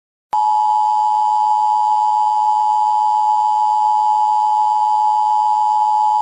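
Loud, steady, unbroken electronic tone, starting abruptly about a third of a second in, like a broadcast off-air tone.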